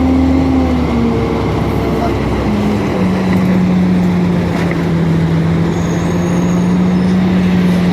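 Cabin sound of a 2004 Orion VII hybrid-electric city bus with BAE HybriDrive, underway. The electric drive gives a steady whine that steps down in pitch about a second in and again between two and three seconds in, over road noise.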